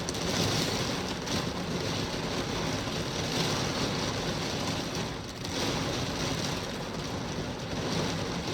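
Heavy rain pouring steadily, an even, dense hiss that eases briefly about five seconds in.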